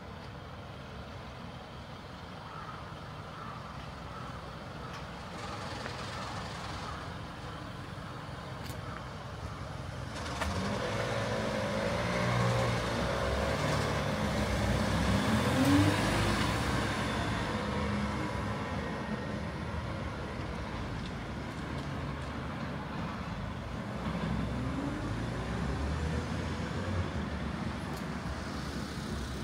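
A motor vehicle's engine passes along the street, growing louder to a peak about halfway through. Its pitch rises as it speeds up.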